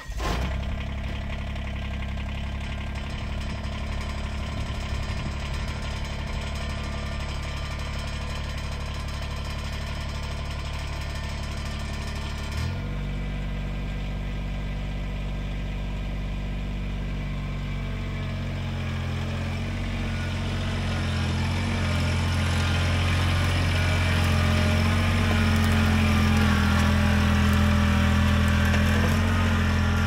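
Kubota BX23S compact tractor's three-cylinder diesel engine running steadily. Its note changes suddenly about 13 s in, and it grows louder over the second half as the tractor comes closer.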